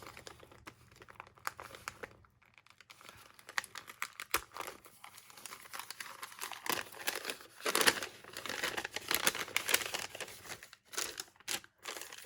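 Plastic packaging crinkling as a sticker packet is handled, in irregular crackles that grow denser and louder in the second half, with one sharp tick about four seconds in.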